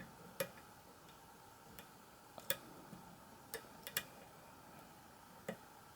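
Faint, irregular metallic clicks of a hook pick and tension wrench working the pins of a pin tumbler lock during single-pin picking, about seven clicks scattered across the few seconds.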